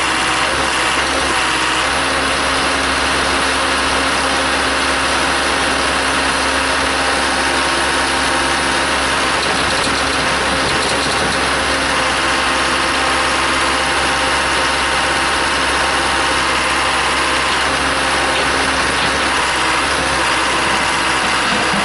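Case 580C backhoe's engine running steadily with no change in speed.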